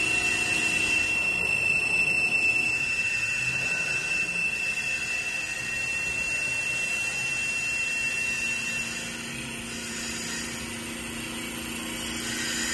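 CNC wood lathe running as it turns a wooden bowl: a high, steady whine over a continuous hiss. The whine stops about nine seconds in.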